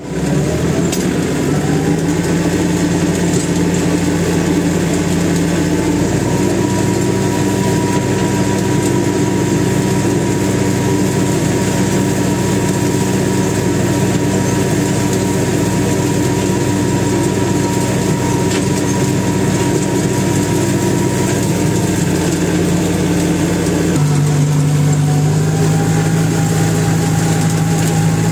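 Tractor engine running steadily while working through a hay field, with a thin steady whine above it for much of the time. About 24 seconds in the engine note shifts to a different, steady pitch.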